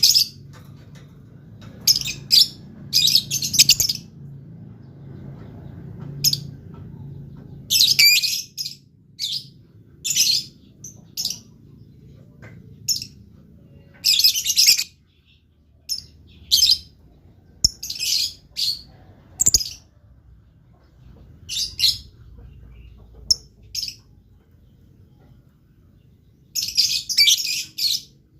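Lovebird chattering in repeated bursts of shrill, high chirps, each run lasting about a second, with short pauses between; the longer runs come a few seconds apart.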